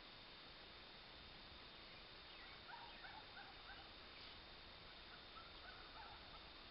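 Near silence with faint outdoor hiss, and a few faint, brief bird chirps through the middle.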